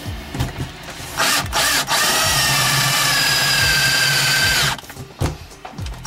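Cordless drill running under trigger control: a short spin-up, then a steady whine for about three and a half seconds that stops abruptly, a few brief blips, and the whine starting again at the end. It is drilling a half-inch hole through a rubber cable grommet.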